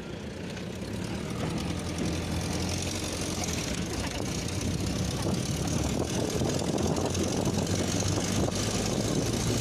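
Truck engine running with wind and road noise, heard from the open back of the moving truck; it grows steadily louder as the truck picks up speed.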